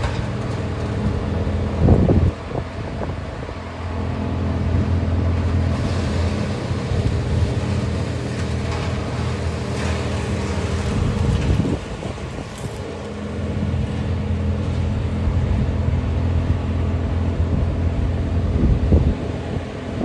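Truck-mounted crane's engine running steadily at raised revs as it hoists a cut tree on its cable, easing off briefly twice. Wind buffets the microphone a couple of times.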